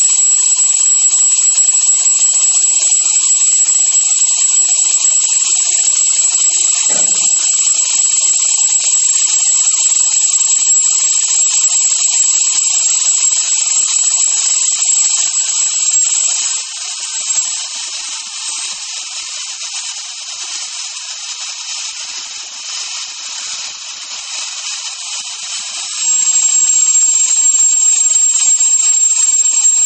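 Nitrogen venting from a telescope detector's liquid-nitrogen dewar as it is filled: a loud, steady hiss of escaping cold gas with a thin high whistle over it. The hiss drops quieter for about ten seconds past the middle, then comes back as strong.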